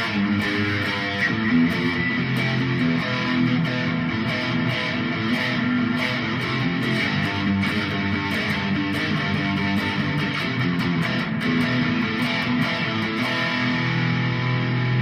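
Electric guitar strummed, playing sustained chords that change every second or two.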